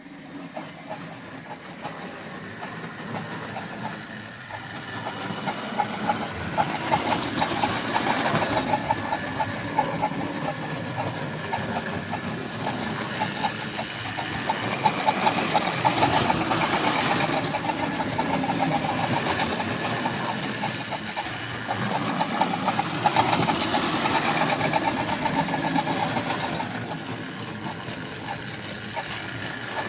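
Hornby OO gauge Flying Scotsman model locomotive running on the track, its sound-effects tender giving a fast, even chuffing. It swells louder and fades again about every eight seconds, as if circling past.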